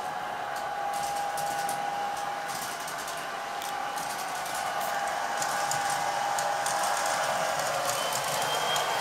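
MTH O-scale model SD45T-2 diesel locomotive with its train running on three-rail track: a steady whine and hum from the locomotive, with scattered light clicks of wheels over the rails, growing louder as it approaches.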